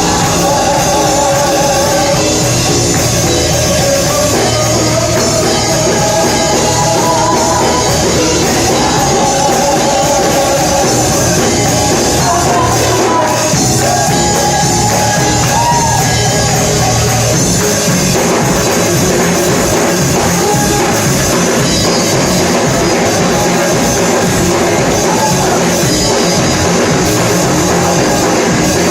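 Live gospel worship band with a drum kit playing loud and steady, with voices singing over it through the first half or so; the band then carries on with the drums more prominent.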